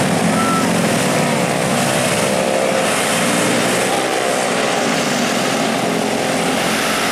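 Mixed traffic climbing a steep hill: several motorcycle engines and a small diesel dump truck running under load as they go uphill, with a bus passing close near the end.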